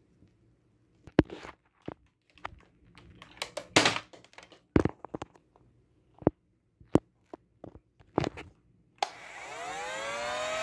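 Plastic Nerf blasters being handled and dry-fired without darts, a run of sharp clicks and clacks. About nine seconds in, a Nerf Modulus Stryfe's electric flywheel motors start and whir up, rising in pitch.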